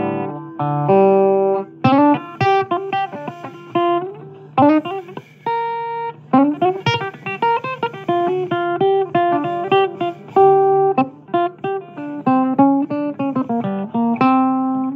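Blues guitar playing an instrumental passage: quick runs of single plucked notes and occasional strummed chords, each note struck sharply and left to ring, over a steady low note.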